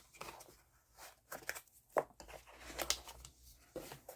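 Handling noise from a nail drill handpiece and its cord being picked up and turned over: irregular small clicks, taps and rustles, with a sharper click about two seconds in.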